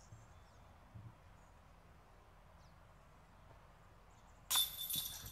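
A disc golf putt striking the metal chains and cage of a disc golf basket: a sudden jangling clash about four and a half seconds in that rings briefly, after a stretch of faint outdoor background. The disc does not stay in; these baskets are said not to hold putts well.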